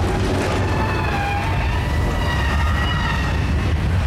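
Loud simulated-earthquake effects: a heavy, continuous low rumble with several high wailing tones sliding up and down above it.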